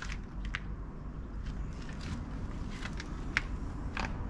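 Wind rumbling on the microphone, with several light clicks and taps as a tinted plastic wind deflector is pressed into a van door's window channel.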